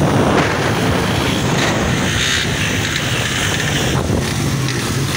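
Vehicle engine running steadily while moving along a road, with wind buffeting the microphone.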